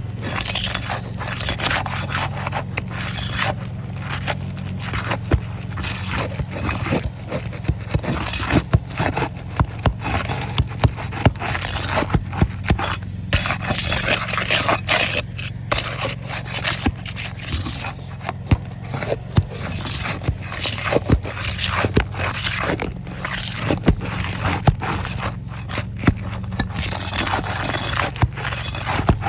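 Scraping and crackling of old 3-tab asphalt composition shingles being pried apart and unsealed from their glue strips, with many sharp clicks and snaps throughout.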